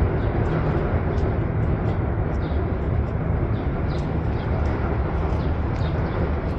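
Steady outdoor city noise, mostly a heavy low rumble with a hiss above it, with faint short high ticks scattered through it.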